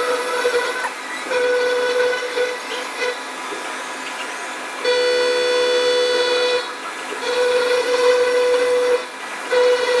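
CNC milling machine face-milling a metal block with an insert face mill, the cutter ringing with a pitched tone near 500 Hz that comes and goes in stretches of a second or two as it engages on each pass. The cut is through a scaly, crusty top surface that is wearing the inserts.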